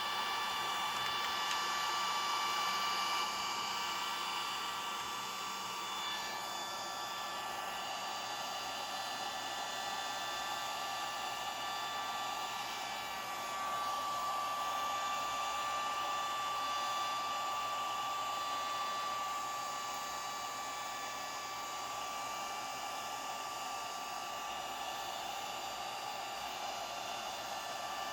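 Daiso cordless mini vacuum cleaner running: a steady high motor whine over rushing air. The pitch and loudness shift slightly a few times.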